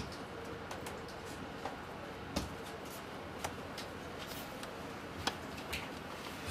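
Quiet open-plan office room tone: a steady hum of tower computers with scattered keyboard and mouse clicks, and a soft knock about two and a half seconds in.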